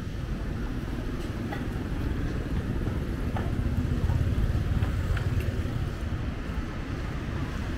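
Street traffic: motor scooters passing on the road, a low engine rumble that swells about halfway through, with a few faint clicks.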